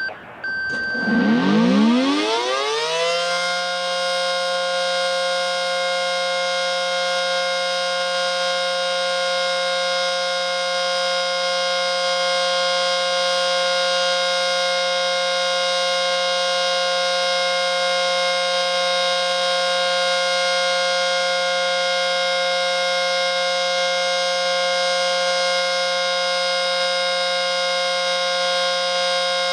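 ACA Screamer S-10 outdoor warning siren winding up: a rising glide over about two seconds, then a loud steady tone with many overtones held at constant pitch, the steady alert signal of a monthly siren test.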